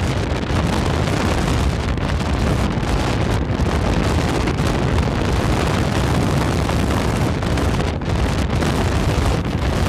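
Wind blast buffeting a helmet-mounted phone microphone on a motorcycle at speed: a loud, steady, rumbling rush of noise.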